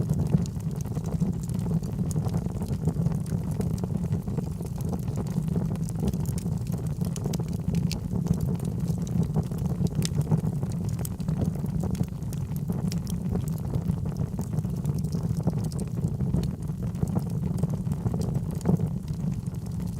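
Wood fire burning in a fireplace: a steady low rush of flames with frequent small crackles and pops scattered throughout.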